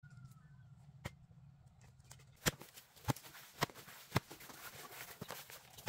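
A series of about six sharp knocks or taps over a low steady hum, most of them coming about half a second apart between two and four and a half seconds in.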